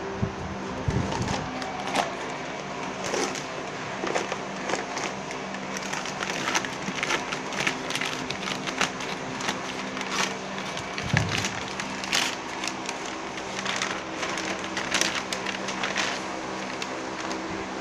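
Irregular light clicks and knocks, several a second at times, over the steady hum of a fan.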